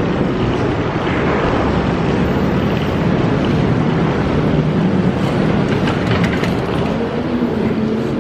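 A loud, steady rushing noise with no distinct events.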